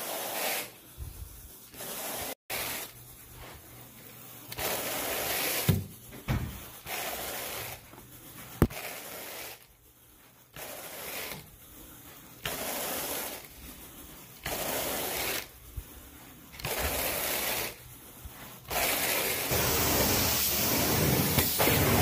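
Carpet rake dragged through carpet pile in repeated strokes, a brushing swish about every two seconds. About three seconds before the end, a steady hiss of a carpet-cleaning extraction wand takes over.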